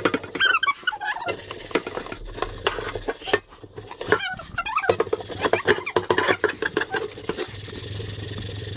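Sponge scrubbing the underside of an old frying pan in a stainless steel sink, with a foamy paste of baking soda, citric acid and dish soap: quick rubbing strokes with wet squeaky scrapes as the burnt-on grime comes off.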